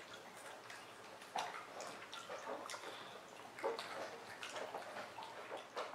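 Faint, scattered small taps and wet clicks from a baby's hands patting and picking at food pieces on a plastic high-chair tray.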